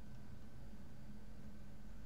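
Room tone: a steady low hum with a faint even hiss, nothing else happening.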